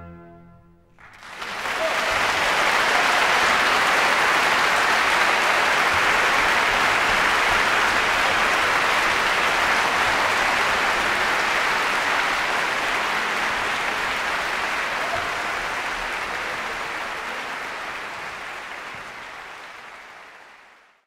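The last chord of a piece of music dies away, then an audience applauds steadily, the applause fading out over the last few seconds.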